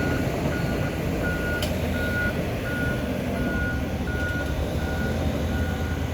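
A John Deere 290G LC excavator's travel alarm beeping steadily, about one and a half beeps a second, over the low rumble of its diesel engine; the alarm signals that the machine is tracking. There is a brief click about a second and a half in.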